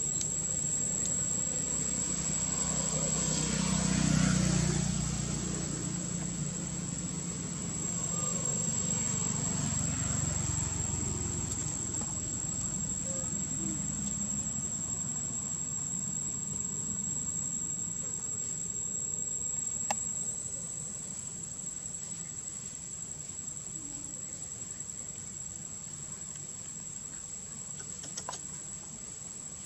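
Insects chirring in a steady high-pitched drone, with a low rumble that swells about four seconds in and fades away by about ten seconds in.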